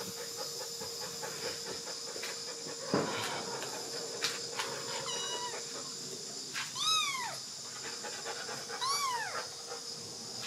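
Month-old kitten meowing: two high, arching mews about two seconds apart, over a steady background hiss. A single soft knock comes about three seconds in.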